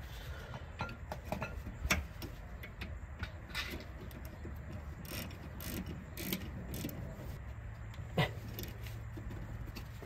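Steel hand tools clinking on a rear brake caliper: an open-end spanner holding the guide pin while a ratchet and socket snug up the caliper guide-pin bolt. Irregular light metallic clicks, the sharpest about 2, 3.5 and 8 seconds in.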